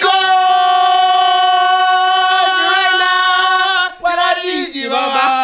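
A voice sings one long, high held note for about four seconds, then breaks off and slides down through a few shorter sung notes.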